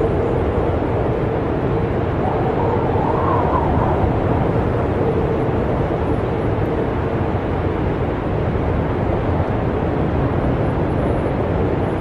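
Snowstorm wind blowing in a steady low roar with a faint howling tone. A gust swells and rises in pitch about two to four seconds in.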